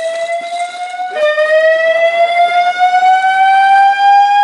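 Emergency vehicle siren in a slow wail. Its pitch climbs gradually, drops back and gets louder about a second in, then climbs slowly again.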